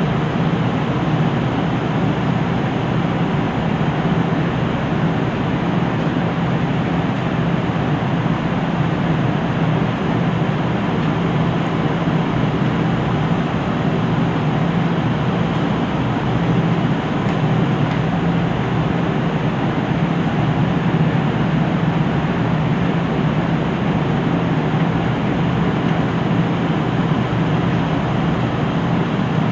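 KiHa 75 diesel railcar's engine idling steadily while the train stands at a station, a constant low hum with a broad rumble and no change in pitch.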